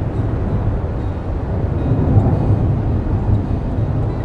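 Jet airliner engines heard as a steady low rumble.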